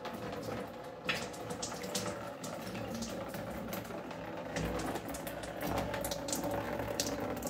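Water trickling and splashing irregularly from the dragon-head spouts of a small wall fountain, with the fountain pump humming steadily underneath. The streams are weak, which the owner takes as a sign that a higher-pressure pump may be needed.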